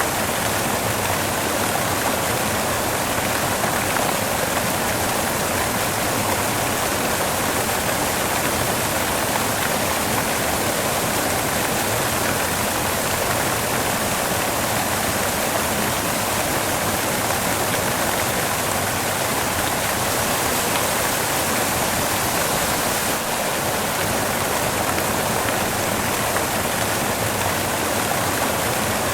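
Steady white noise: a constant, even hiss with no change or pattern.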